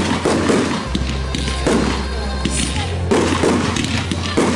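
A fireworks display going off: repeated thumps of launches and bursts, with crackling from the fountains and comets, over music with a steady bass line.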